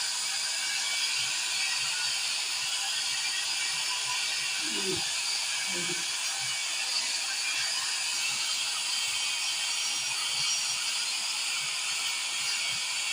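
Handheld electric hair dryer running steadily, a constant airy hiss from its fan and blowing air.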